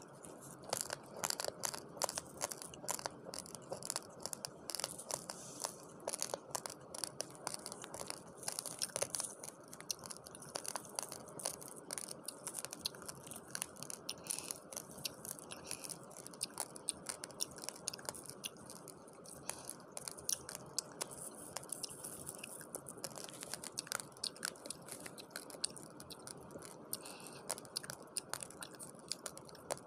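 Raw long-grain rice being chewed up close: a dense, rapid run of crisp crunches and cracks.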